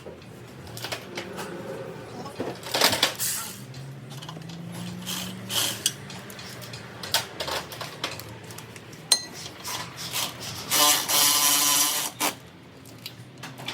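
Metal hand tools and steel suspension parts clinking and knocking while the lower strut bolt is fitted and started. About eleven seconds in, a tool runs steadily for about a second and a half.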